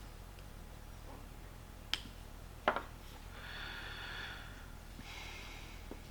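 Small metal parts of an old car door jamb switch being handled: two sharp clicks a couple of seconds in, then faint scraping and rubbing twice.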